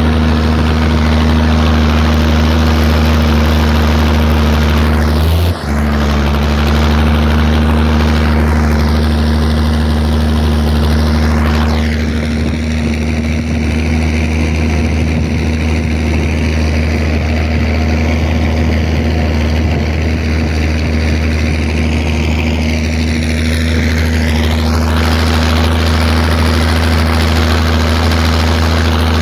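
Zetor tractor's diesel engine running steadily under load while pulling a plough, heard from the cab. There is a brief dip about five seconds in.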